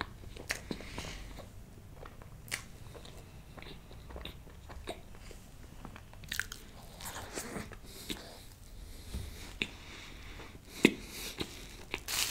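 Close-miked chewing of soft whipped-cream and chocolate-sponge cake: wet, sticky mouth sounds with scattered sharp mouth clicks.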